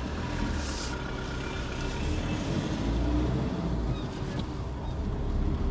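Car pulling away, heard from inside the cabin: low engine and road rumble that grows slightly louder as it gets moving.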